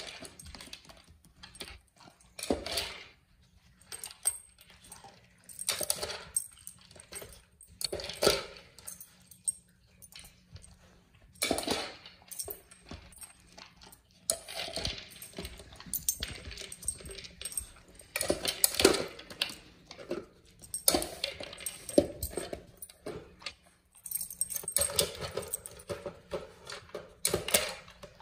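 Dog nosing and pawing a plastic UFO Pro puzzle feeder, the plastic dome and base clattering and kibble rattling inside in irregular bursts of clicks every second or two.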